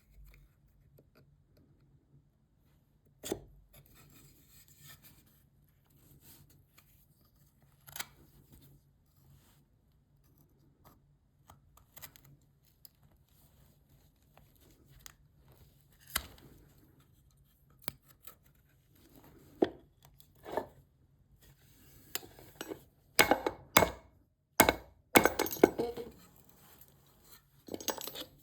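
Cherry wood being cut or carved with a hand tool: scattered short cutting strokes and taps, coming thick and fast in the last few seconds.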